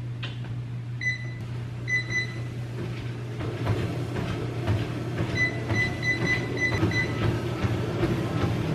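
Life Fitness treadmill running: a steady motor hum and belt noise, the console beeping at button presses — one beep about a second in, two near two seconds, then a quick run of beeps between about five and seven seconds as the speed is raised. Footfalls on the belt grow steadily louder and more regular from about three and a half seconds on.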